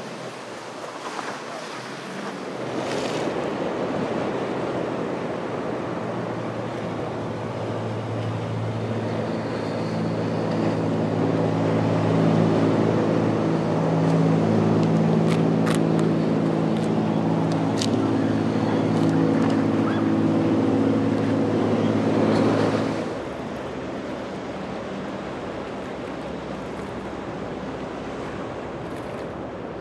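Outboard motor of a center-console boat running at speed through choppy water, a steady engine drone over rushing water and spray that grows louder as the boat passes. About three quarters through it drops suddenly to steady surf and wind.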